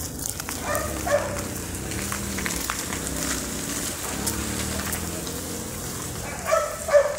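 A dog barking, two barks about a second in and two more near the end, over a crackling rustle, with a low voice murmuring faintly in between.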